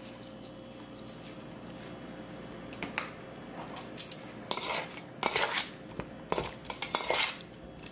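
A utensil scraping and clinking against a stainless steel mixing bowl while stirring batter-coated cauliflower. It starts about three seconds in and grows busier toward the end, in irregular clicks and scrapes.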